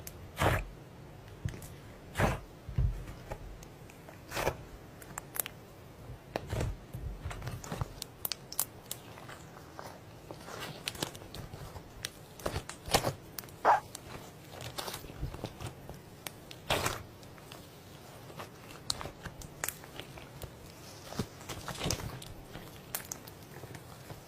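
Slime being played with, making irregular crunchy clicks and crackling pops, a few of them louder than the rest.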